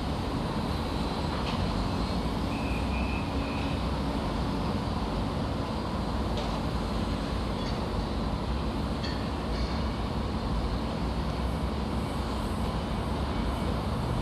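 Construction site ambience: a steady low mechanical rumble of heavy machinery, with a few faint clinks and a brief high tone near the start.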